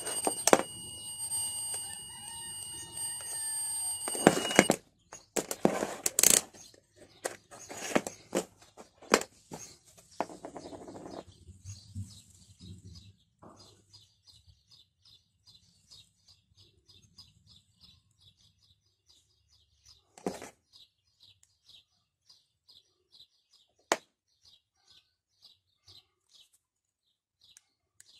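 A830L digital multimeter's continuity buzzer sounding a steady beep for about four and a half seconds, then cutting off suddenly. Clicks and rustling of the test leads being handled follow. From about ten seconds in, a bird chirps faintly and repeatedly, about twice a second, with two sharp clicks later on.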